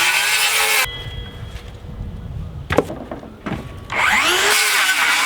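DeWalt 60V Max cordless circular saw cutting scrap OSB in two bursts: the first ends just under a second in, the second starts about four seconds in. The motor's whine bends in pitch during each cut.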